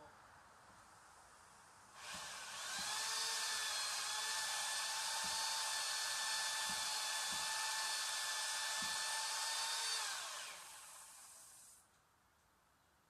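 Power saw running at a steady high speed for about eight seconds, a high whine with a hiss over it, then winding down with a falling pitch.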